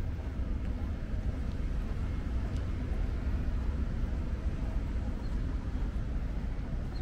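Steady low rumble of outdoor ambient noise, with a fainter hiss above it and no distinct events.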